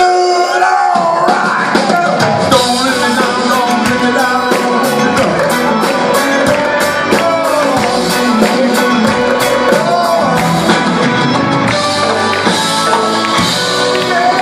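Live rock band playing electric guitars, keyboards and drums; the drums and bass come in about two seconds in and the full band plays on.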